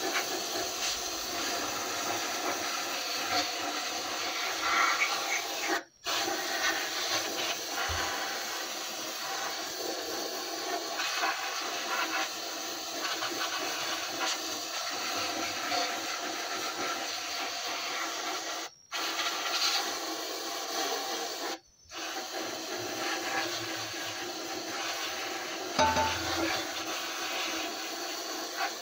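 Continuous rubbing and scraping on the metal of a Chevrolet Astro's rear differential cover. It breaks off abruptly for a moment three times.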